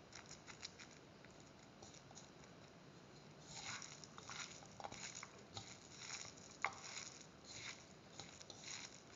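A hand squeezing and mixing a coarse ground split-chickpea batter with chopped shallots in a bowl: faint, irregular wet squishing and crackling strokes, denser and louder from about three and a half seconds in.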